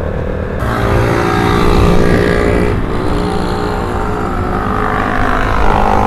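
Yamaha single-cylinder trail-bike engine accelerating, its pitch rising, dropping at a gear change about three seconds in, then rising again, with wind rumble over the microphone.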